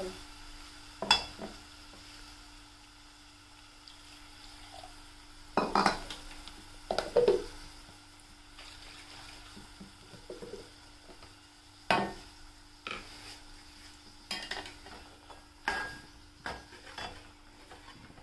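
A metal spoon scraping and clinking against a steel cooking pot and bowl as masala paste is tipped in and stirred, in separate knocks a second or more apart over a faint steady hum.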